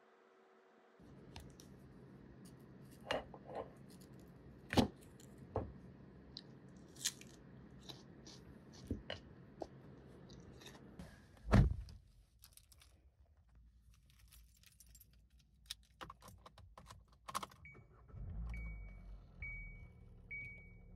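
Crisp clicks and crunches of a firm hard peach (ttakbok) being split with a fork, the loudest crunch about halfway through. Near the end a car's warning chime sounds four times, evenly spaced, over a low rumble.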